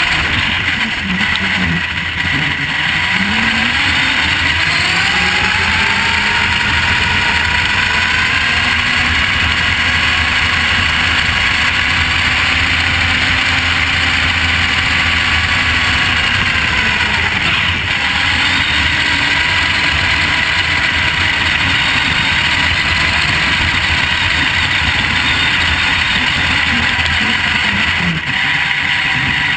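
Electric motor and gear drivetrain of a Vaterra Twin Hammers RC truck whining, rising and falling in pitch as it speeds up and slows, over the crunch of its tyres on gravel. The sound is heard from on board the truck.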